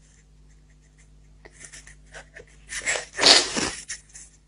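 A crying woman's short sniffly breaths, then one sharp, noisy outburst of breath about three seconds in.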